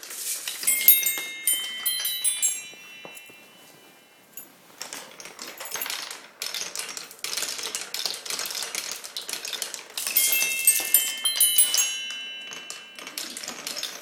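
Marbles rolling and clattering through a Quadrilla wooden marble run, with rapid clicks and knocks, and twice striking the run's musical sound blocks for quick runs of ringing chime-like notes, once about a second in and again about ten seconds in. Near four seconds in the clattering briefly dies down.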